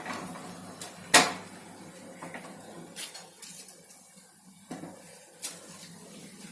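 Knocks and clatter of hard objects being handled, the loudest a sharp knock about a second in, with a few softer knocks a couple of seconds apart after it.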